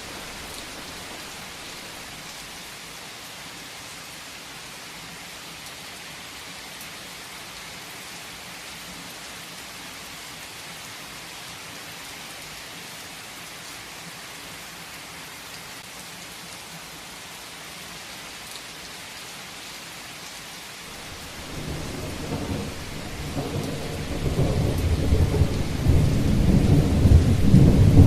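Heavy rain falling steadily. About three-quarters of the way in, a long thunder rumble builds and grows loud, peaking near the end before it dies away.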